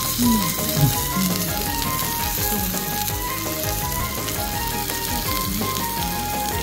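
Marbled beef sizzling steadily as it sears on a hot oval cast-iron plate, the fat and juices spitting and hissing in the pan.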